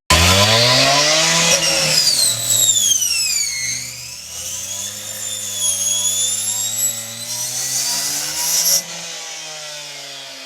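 A power cutting tool spinning up and cutting, most likely into metal; its high whine sags and recovers as the blade is loaded, over a hiss from the cut. About nine seconds in the cut stops, the hiss ends and the tool keeps running more quietly.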